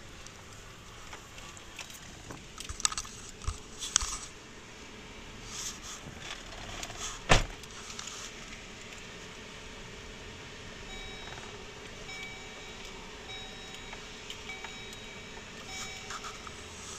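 Rattling and knocks of gear being handled while a kayak is loaded, the loudest a single sharp knock about seven seconds in. In the second half a faint tone comes and goes in short beeps.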